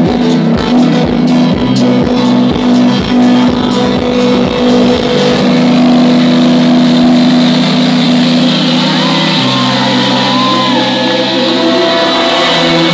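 Electronic dance music from a DJ set, played loud over a sound system: the kick-drum beat drops out after about three seconds into a breakdown of held synth chords, with a rising noise sweep building near the end.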